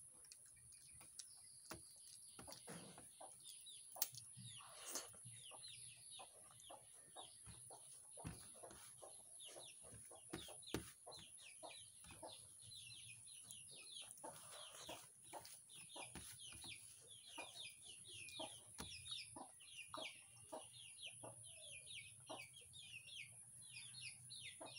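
Faint clicks and smacks of eating by hand from a steel plate, with a dense run of rapid bird chirps in the background that thickens from about halfway through, over a steady faint high hiss.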